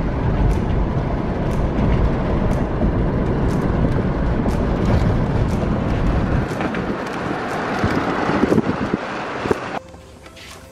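Steady road and wind noise inside a moving car, which cuts off suddenly near the end.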